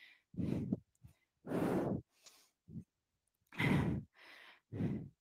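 A woman breathing hard with exertion: about four loud, breathy exhalations roughly a second apart, with silence between them.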